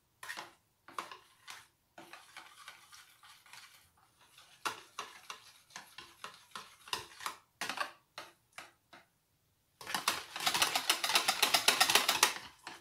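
Wire whisk beating a yogurt and gram-flour mixture with added water in a plastic container: irregular light clicks and scrapes of the wires against the tub, then, near the end, a run of fast, even whisking strokes.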